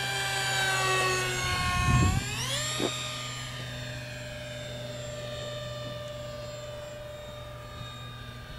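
Radio-controlled model Airbus A320 flying past low, its motors making a steady high whine. The whine sinks slowly in pitch, then sweeps sharply up about two and a half seconds in, and fades as the model climbs away. There is a brief low rumble on the microphone around two seconds in.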